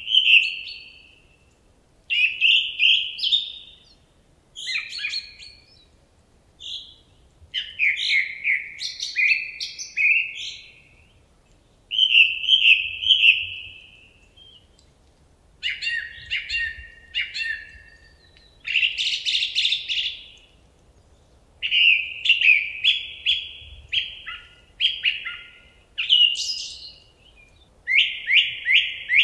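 A songbird singing short, varied phrases of chirps and trills, one phrase about every two seconds with brief pauses between.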